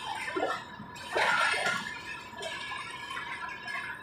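Passenger coaches of a departing train rolling slowly past on the track: irregular clanks and rattles from wheels and couplings, with a steady high tone underneath. The loudest rattle comes about a second in.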